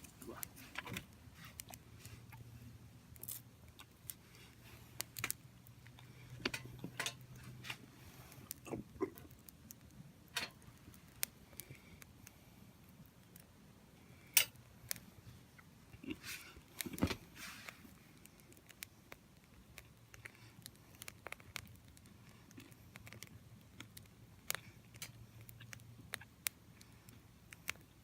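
Small wood fire crackling in a compact folding fire grill: irregular sharp pops and snaps, a louder snap about fourteen seconds in and a cluster near the seventeen-second mark, over a faint low hum at times.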